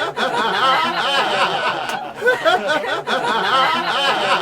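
High-pitched laughing and giggling, several overlapping voices.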